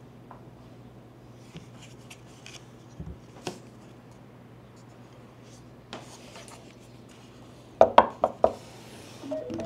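Objects being handled on a hard surface during an unboxing: scattered small clicks and taps, then a quick cluster of louder knocks about eight seconds in followed by a brief rustle. A low steady hum runs underneath.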